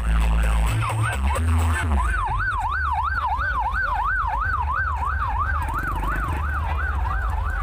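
Carnival sound-system music with heavy bass for about the first two seconds, then an electronic emergency siren starts up in a fast yelp, its pitch swinging up and down about three times a second over a low rumble.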